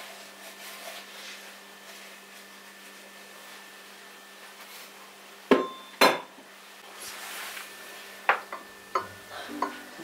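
Dishes and cutlery clinking: a few scattered sharp clinks, the two loudest about half a second apart just past the middle, over a faint steady hum.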